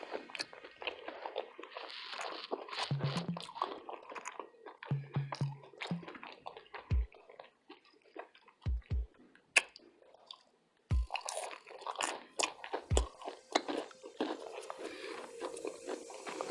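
Close-miked chewing of a plant-based Philly steak burrito: a steady run of wet, crackly mouth and biting sounds, broken by a few dull low thumps.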